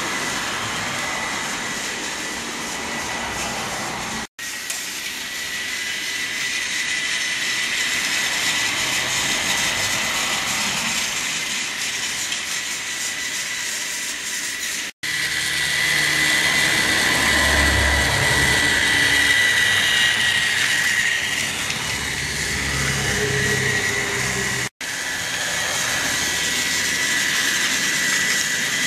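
Battery-powered Trackmaster toy train running on plastic track: a steady small-motor whine with a faint high tone, with the wheels rattling on the track. The rumble grows louder in the second half, and the sound drops out briefly three times.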